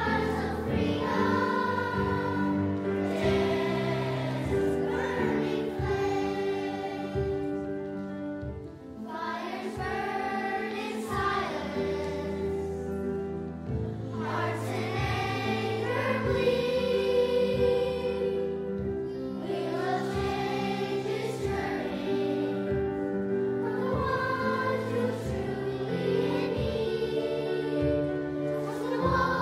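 Children's choir singing, with long held notes and phrases that swell and fade, dipping briefly about nine seconds in.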